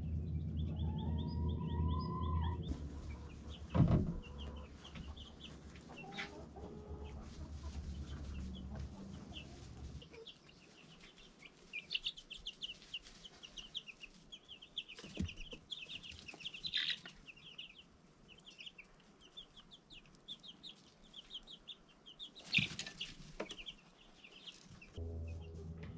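Young chickens peeping: many short, high chirps in quick runs, busiest from about ten seconds in. A low steady hum underlies the first part, and a few sharp knocks come through, the loudest about four seconds in.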